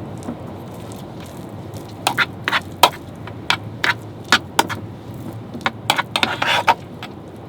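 Cooking utensils clinking and scraping against cookware: irregular sharp clicks from about two seconds in, with a brief scrape near the end. Under them runs a steady low rumble of wind.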